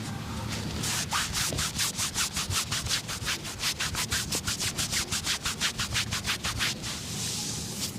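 Rapid, even rubbing or scraping strokes, about five a second, starting about a second in and stopping near the end, followed by a softer hiss.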